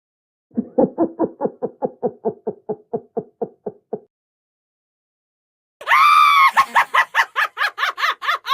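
Two sound effects one after the other: a low-pitched laugh-like 'ha-ha-ha' of about five pulses a second, fading over three and a half seconds, then, after a pause, a shrill, rapid high-pitched laugh-like cackle.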